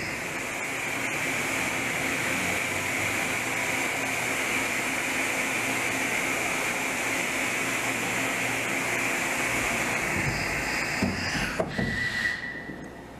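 Pallet changer of a Daewoo DHC 400 horizontal machining centre cycling behind the closed guard door: a steady hiss for about eleven seconds, with a few knocks before it stops sharply near the end.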